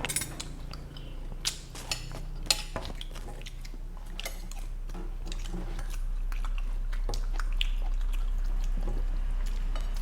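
Eating at a table: a spoon clinks against a plate a few times in the first few seconds, with softer chewing of fried noodles between, over a steady low hum.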